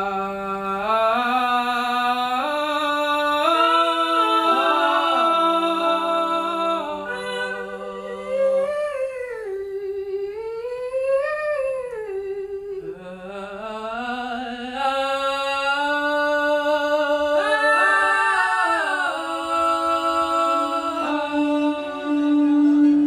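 Wordless voices humming and singing long held notes that glide slowly up and down in pitch, two lines sounding together in places.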